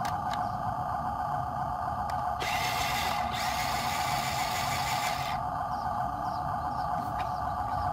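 RC truck's small electric motor and gearbox whining steadily as it pushes through mud, with a higher hiss that cuts in and out, briefly about two and a half seconds in.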